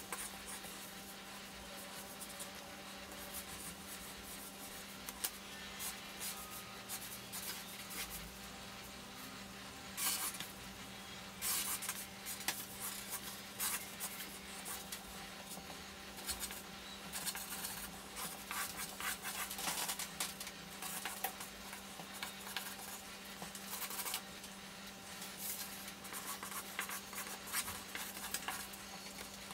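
Felt-tip marker scratching across paper in quick, repeated strokes drawn along a wooden stick used as a straightedge, sped up fourfold, over a steady low hum.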